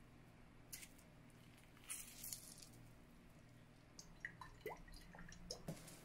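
Faint wet squishing and dripping as lemon juice and olive oil go onto a bowl of chopped cabbage, cucumber and herbs: a few soft ticks, then a run of small drips in the last two seconds.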